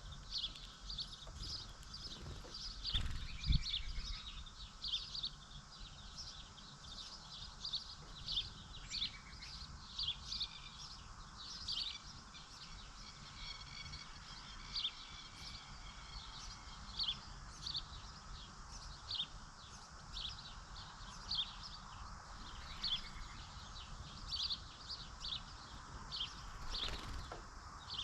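Small birds chirping: many short, high chirps overlapping, a few each second, throughout. A low thump about three and a half seconds in.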